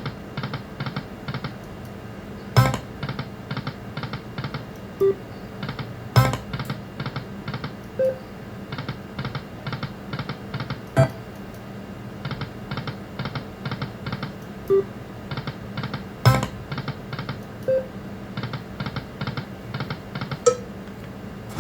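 Lightning Link video slot machine spinning over and over: each spin brings a sharp click and a quick run of ticks as the reels spin and stop, with a short beep here and there.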